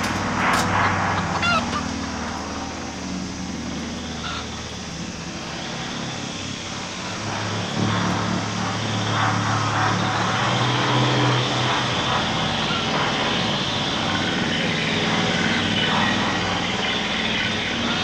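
Dark droning film score of layered low hums and a rough, rasping texture, growing louder about eight seconds in. A caged chicken squawks briefly in the first seconds.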